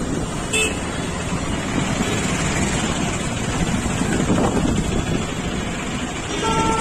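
Steady street traffic noise, with a vehicle horn starting to honk in one steady tone near the end.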